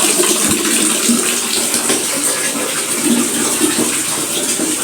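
Water running steadily, as from an open tap.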